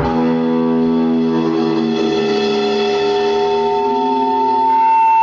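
An amplified guitar chord struck once and left ringing out, its tones slowly fading, while one high tone swells louder toward the end.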